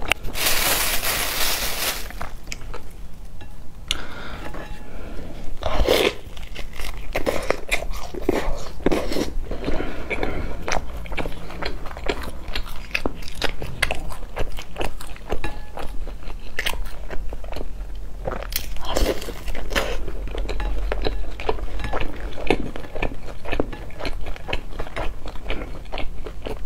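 Close-miked eating: a person biting and chewing pieces of food from a bowl of soup, with many wet mouth clicks and crunches. A loud burst of crackly noise lasts about a second and a half near the start.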